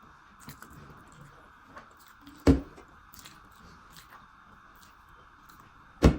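Close-up eating sounds: quiet chewing and small mouth clicks over a steady hiss, broken by two sharp, loud smacks or knocks, one about two and a half seconds in and one near the end.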